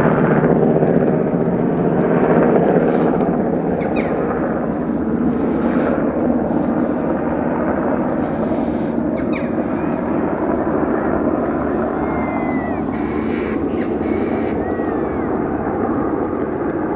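Sikorsky S-92A twin-turbine helicopter climbing away overhead, its rotor and turbine noise steady and slowly fading as it departs.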